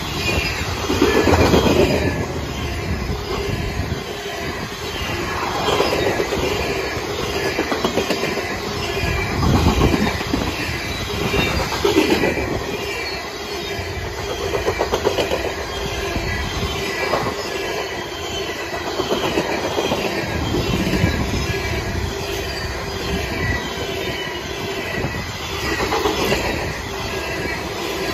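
Covered hopper cars of a long freight grain train rolling past at speed: steel wheels rumbling and clicking rhythmically over the rail, with a thin steady wheel squeal. The noise swells and fades every few seconds.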